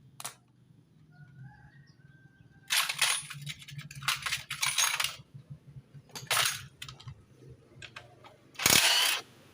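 Metal motorcycle parts and tools clinking and rattling as they are handled, in several short bursts, the loudest near the end.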